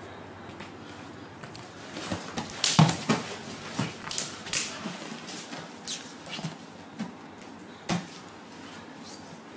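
Bodies of two grapplers thudding and scuffing on a canvas-covered wrestling mat during a scramble. A run of thumps comes about two to five seconds in, the loudest near three seconds, with a last strong thump near the end.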